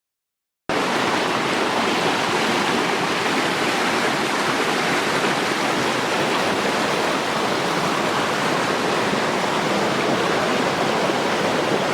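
Steady rushing of water falling over rocks at a forest waterfall, cutting in abruptly less than a second in.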